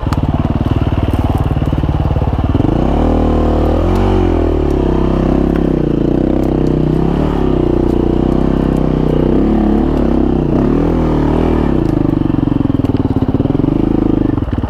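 Husqvarna FE350s single-cylinder four-stroke dirt bike engine running low and even, then from about two and a half seconds in revving up and down repeatedly as the bike is ridden.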